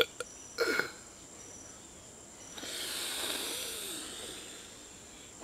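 A sharp click, then a short cry from a man's voice, followed about two and a half seconds in by a long breathy hiss of breath that swells and fades over nearly two seconds.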